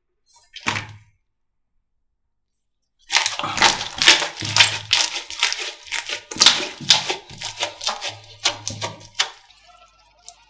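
Slime being pressed and squeezed by hand: one brief pop just under a second in, then about six seconds of rapid popping and crackling with dull thumps underneath.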